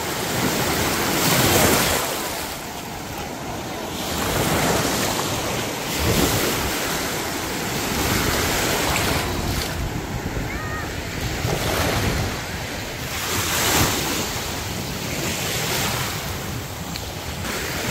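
Small sea waves washing up onto a sandy shore and breaking in the shallows, swelling every two to three seconds.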